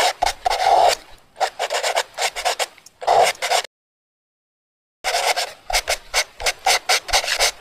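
Marker pen scratching across a drawing board in rapid short strokes. It cuts off abruptly just past halfway, then starts again after about a second of silence.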